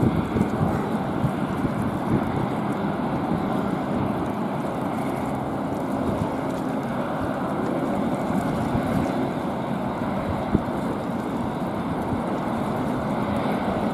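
Steady roar of a Boeing 747-8F freighter's four GEnx jet engines as the jumbo rolls past on the ground.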